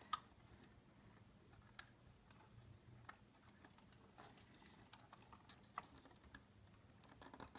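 Faint, irregular clicks of hard plastic parts on a Bruder JCB 5CX toy backhoe loader being handled, a handful spread a second or more apart.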